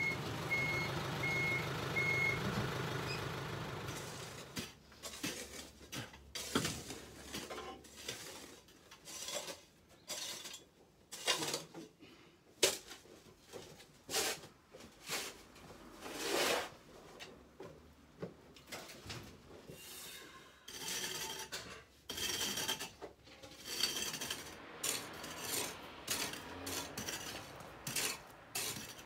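A few evenly spaced high beeps over a low engine-like hum in the first couple of seconds, then irregular clinks, clatters and knocks of hard objects being handled.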